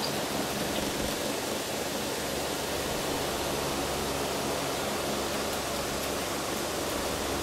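Steady, even hiss with a faint low hum underneath, while the police radio carries no voice.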